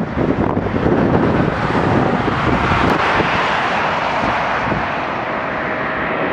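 Wind buffeting the microphone over passing road traffic. In the second half, the rushing jet noise of an Airbus A220-300 on final approach builds.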